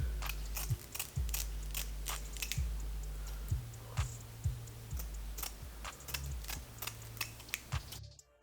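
Irregular clicks and taps of objects being handled close to the microphone, over a low hum, cutting off suddenly near the end.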